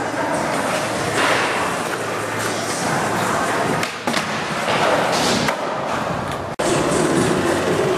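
Skateboard wheels rolling on a smooth concrete floor, with knocks and thuds of the board against a ledge and the floor, echoing in a large indoor hall. The sound cuts out briefly about two-thirds of the way in.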